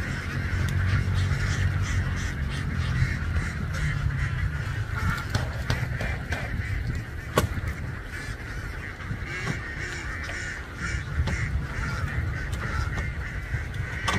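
A large flock of domestic ducks calling all at once, a continuous din of overlapping quacks, with a low rumble underneath and a single sharp click about seven seconds in.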